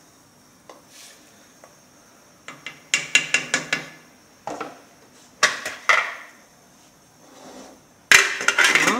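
Metal spoon clinking and scraping against a stainless steel pot as a herb stew is stirred, in several short bursts of clatter, the loudest near the end.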